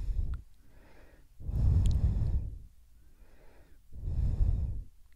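A person breathing close to the microphone: a short breath at the start, then two longer breaths about two and a half seconds apart.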